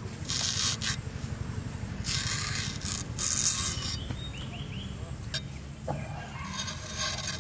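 Fresh banana-leaf midrib being split into strips against the iron blade of a bonti: rasping, tearing scrapes of plant fibre in three bursts, the longest in the middle.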